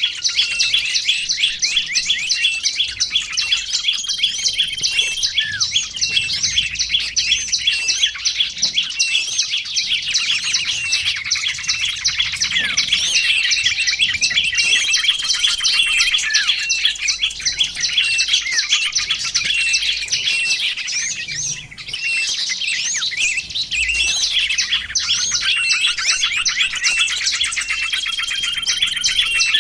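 Small songbirds chirping and singing without a break, many rapid high-pitched notes and trills overlapping, with a brief lull about two-thirds of the way through. It is a mixed lure recording of small birds.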